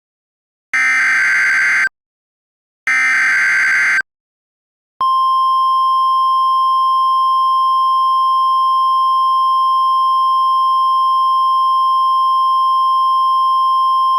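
Emergency Alert System header: two bursts of rapid data tones, each about a second long and a second apart, the last two of the three header bursts. A second after the last burst, the steady single-pitch EAS attention tone begins and holds.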